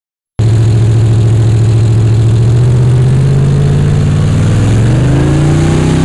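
Engine of an old flat-fender Jeep running loudly and steadily. It cuts in abruptly about half a second in, and its pitch shifts up and down near the end as the throttle changes.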